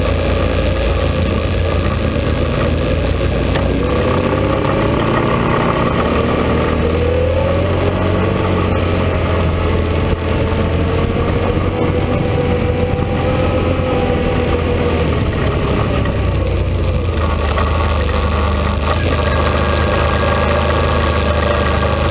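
ATV engine running while riding along a rough trail, with a steady low drone and a pitch that rises and falls gently with the throttle.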